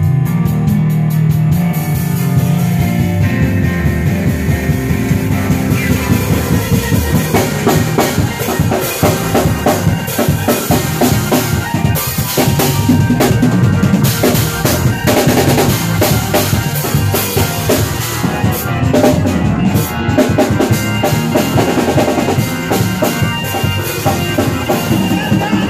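A live church band jamming: a drum kit plays dense, fast snare, rim and bass-drum strokes over bass and keyboard. The drumming gets busier about a quarter of the way in.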